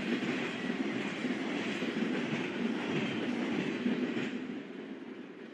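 Double-stack container freight train's wheels rolling steadily over the rails as the cars pass, fading away after about four seconds as the end of the train goes by.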